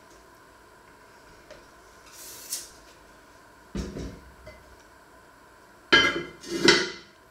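A heavy red enamelled cast-iron casserole pot is set down on the stovetop with a dull clunk after a brief scrape, then its cast-iron lid clatters on twice with a ringing clank near the end.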